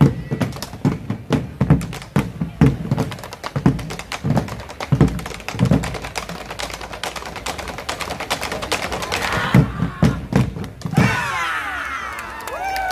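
Ensemble of Argentine bombo legüero drums beaten with sticks in a fast, driving rhythm: deep thuds mixed with sharp stick clicks. The drumming stops about eleven seconds in and is followed by high, falling whoops from the crowd.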